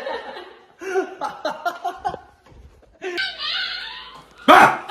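A run of short, pitched vocal bursts, several a second, then a sudden loud startled scream near the end.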